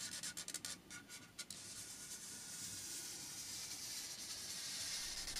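Felt-tip permanent marker drawn along the edge of a Getinax (laminated paper) workpiece: a faint scratchy rub, several short strokes in the first second or so, then one longer steady stroke.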